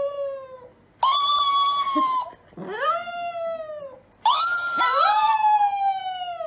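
A chihuahua howling: a string of long howls, each rising and then sliding down in pitch. A second howl overlaps the fourth about five seconds in.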